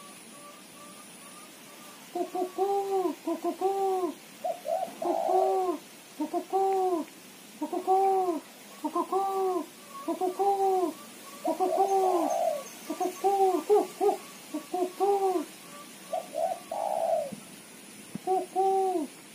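Female spotted dove (tekukur) giving its rapid chattering 'ketrekan' call. Short arched coos come in quick runs of about two to three a second, starting about two seconds in and broken by a few short pauses.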